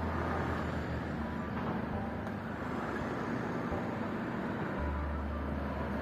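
Steady outdoor ambience: a wash of noise with a low rumble, typical of road traffic in a town street.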